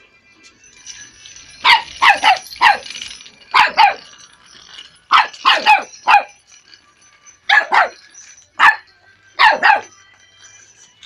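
Small black dog barking repeatedly at a toy snail, in quick runs of two to four sharp barks with short pauses between.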